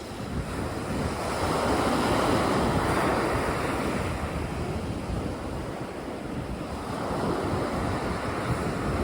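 Sea waves washing onto a beach, swelling to a wash about two seconds in and then receding, with a low rumble of wind buffeting the microphone.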